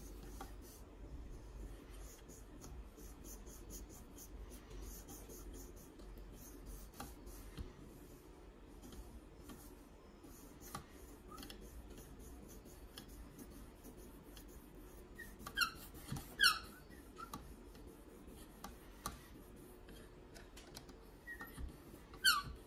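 A KME guided sharpener's stone is stroked along the edge of a Spyderco Yojimbo 2's CPM 20CV blade with faint scraping strokes. A few short, high squeaks come in two clusters, about two-thirds through and near the end.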